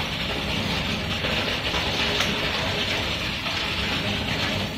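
Water gushing steadily from the running well pump's pipe into and around the blue plastic water tank.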